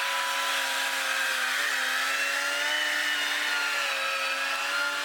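Two-stroke chainsaw engine running at high, steady revs, its pitch dipping briefly about a second and a half in. It cuts off suddenly at the very end.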